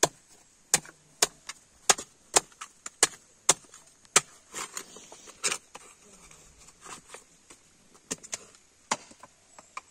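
Sharp, irregular knocks of a knife blade against coconut shell and a wooden block as copra meat is pried and gouged out of coconut halves, about one or two strikes a second, with a short lull in the middle.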